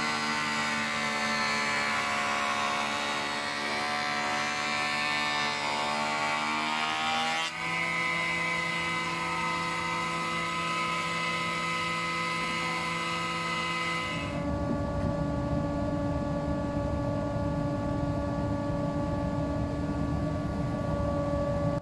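Jointer (surface planer) running as a wide beech board is fed over its cutter block, a steady machine hum with several tones. The hum changes abruptly about seven seconds in, and again about fourteen seconds in, when a low rumble joins it.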